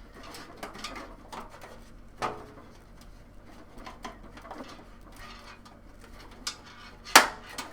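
Metal I/O shield being pressed by hand into a PC case's rear opening: scattered light clicks and scrapes of thin sheet metal, then one sharp pop near the end as it snaps fully into place.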